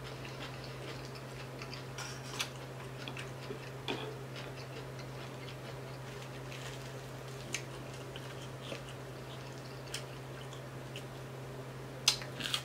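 Scattered small crackles and clicks of crispy fried tilapia skin and bones being pulled apart by hand, with a cluster of louder crackles near the end. A steady low hum runs underneath.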